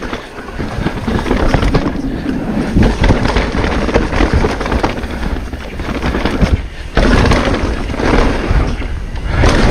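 Mountain bike ridden fast down a dirt and rock forest trail: tyres rolling over the ground with many knocks and rattles from the bike, and wind buffeting the microphone. The noise drops briefly about six and a half seconds in, then comes back louder.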